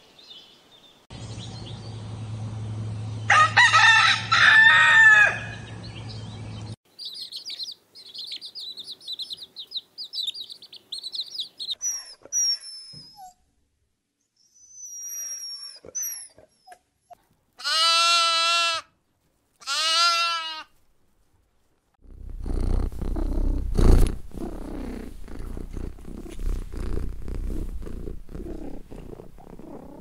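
A run of animal sounds: a rooster crowing a few seconds in, then thin high chirping of small birds, two long whining cries that fit newborn puppies, and from about two-thirds of the way through, a domestic cat purring steadily while being stroked, with one sharp click partway through.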